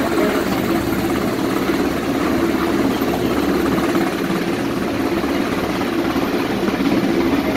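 US Coast Guard MH-60 Jayhawk helicopter hovering close overhead, its rotor and turbine noise running steadily throughout.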